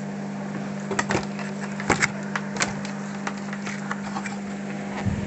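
Scattered knocks and clatter of a CRT TV chassis and tools being handled on a wooden workbench, over a steady low hum.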